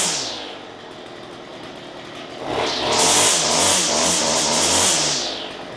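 John Deere C1200 string trimmer's two-stroke engine drops from full throttle to idle, idles for about two seconds, then is revved in a few surges for about three seconds before falling back to idle near the end. It is running after a carburetor repair, with the idle set so that it keeps running when the trigger is let go.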